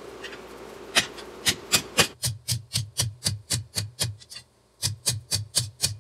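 Ball-peen hammer forging a hot tomahawk head on an anvil: sharp metal-on-metal blows, a few spaced strikes at first, then a quick run of about four a second with a short pause a little past the middle.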